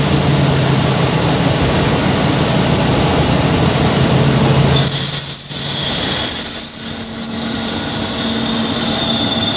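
Class 40 diesel-electric locomotive's English Electric 16-cylinder engine running under way, heard from inside the cab over steady wheel-and-rail rumble, with a constant high whistle typical of the class's turbochargers. About five seconds in the whistle jumps higher, then falls back in steps, and the low engine note changes soon after.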